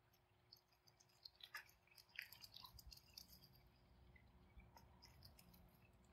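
Near silence: faint outdoor pond ambience with scattered light clicks and two brief high chirps, about a second and a half and two seconds in.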